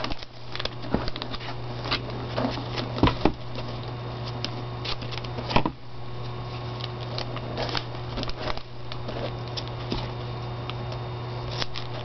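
Hands handling paper and a roll of vellum adhesive tape, pressing tape strips onto a vellum sheet: scattered light clicks, taps and paper rustles, with a few sharper clicks, over a steady low hum.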